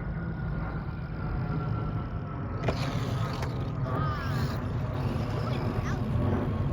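Small electric RC car motors whining, the pitch sliding up and down as the cars speed up and slow. There is a sharp click about two and a half seconds in, over a steady low rumble like wind on the microphone.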